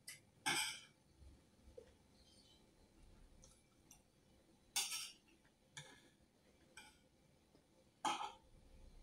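Quiet eating sounds: a person eating from a plate with a fork, making several short, sharp scraping or breathy noises a second or more apart, the loudest about five and eight seconds in.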